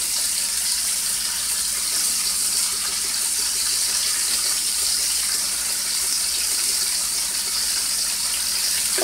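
Beef short ribs sizzling in a skillet: a steady, even frying hiss.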